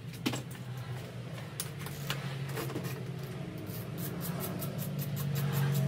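A few small metal clicks and taps as pinch bolts are pulled by hand from a motorcycle's fork top clamp. Background music with a quick regular tick fades in over the second half and gets louder toward the end.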